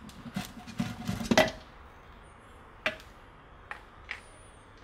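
Steel gears and shafts of a Peugeot BE4 gearbox clinking and knocking against each other and the aluminium casing as the shaft cluster is handled: a quick run of clinks in the first second and a half, then three single clicks.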